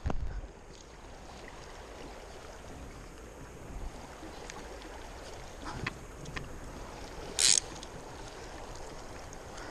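Steady rush of moving water with wind on the microphone, a deep thump at the start, a few light clicks near the middle, and a short, sharp hiss about seven and a half seconds in.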